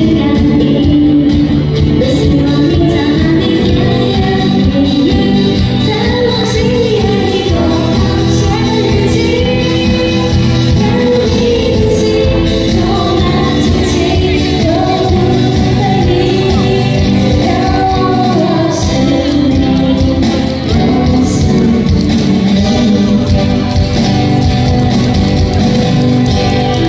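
A song with a voice singing a wavering melody over steady, continuous backing music.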